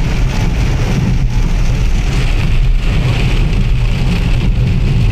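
Inside a moving car in heavy rain: a steady engine and road rumble with the hiss of rain and tyre spray off the wet road.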